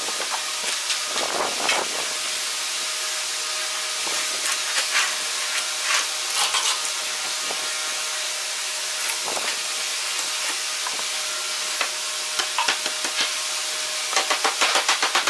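Steady hiss with a few scattered knocks of wood and metal drawer slides as a wooden drawer is fitted, then a quick run of light, even hammer taps near the end.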